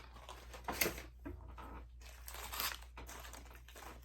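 Plastic snack packaging crinkling and rustling as it is handled, with a brief sharp crackle about a second in.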